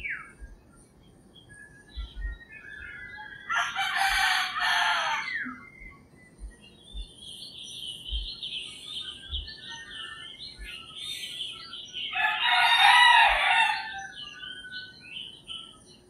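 Roosters crowing twice, once about four seconds in and again about twelve seconds in, each crow lasting about a second and a half. Small birds chirp between the crows, with a run of rapid high chirps in the middle.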